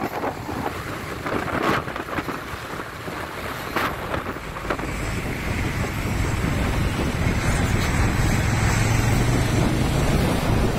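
Wind buffeting the microphone over road traffic noise while moving through traffic, with a few sharper gusts early on. About halfway through, a low steady engine hum comes up under the rush and grows slightly louder.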